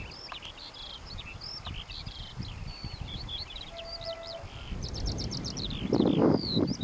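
A Eurasian skylark sings its song flight: a long, unbroken stream of quick, varied warbling and trilling notes. Near the end a low rumbling noise on the microphone swells up under the song.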